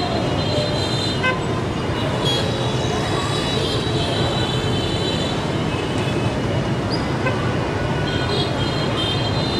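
Busy street traffic ambience: a steady hum of vehicles with short, repeated high-pitched horn toots.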